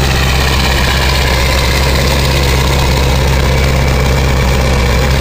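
Ford 7.3-litre Power Stroke V8 turbo-diesel idling steadily with no lope, heard at the tailpipe while the engine is still cold, its exhaust smoking white.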